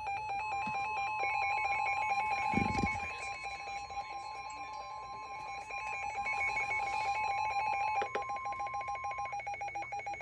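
NOAA Weather Radio warning alarm tone: a single steady tone near 1 kHz, held for about nine seconds, which signals that a warning such as this severe thunderstorm warning is about to be read. Under it, and before and after it, a fast trilling electronic alert warbles between a low and a high pitch. A dull low thump comes about two and a half seconds in.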